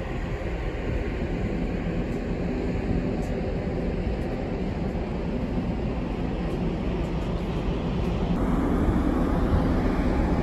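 Steady low rumble of the Sunflower Kirishima car ferry's engines and machinery, heard from the open deck as the ship moves through the harbour.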